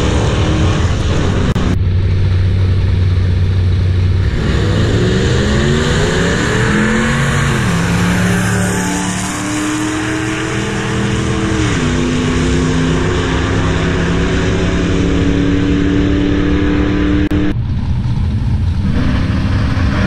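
Drag-racing car's engine at full throttle down the strip, its pitch climbing and dropping back twice as it upshifts through the gears.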